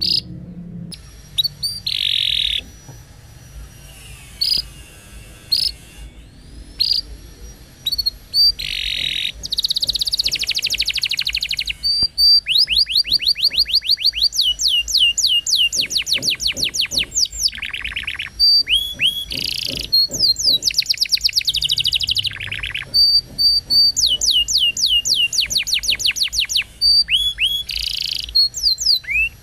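Domestic canary singing: scattered chips and short calls at first, then from about twelve seconds in, long rapid trills of quick repeated sweeping notes, one run after another.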